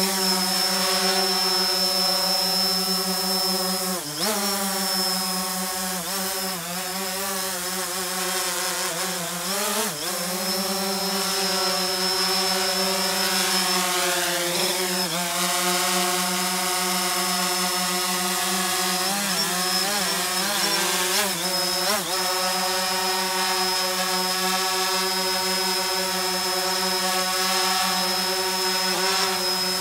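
DJI Phantom 4 Pro quadcopter hovering low, its propellers giving a steady buzzing drone with a thin high whine on top. The pitch dips and swings a few times as the drone corrects its position.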